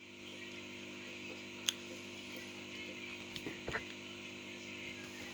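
A few light clicks of pliers gripping and working at the small plastic case of a refrigerator overload protector: one sharp click about two seconds in, then a few smaller ones past the middle, over a steady low electrical hum.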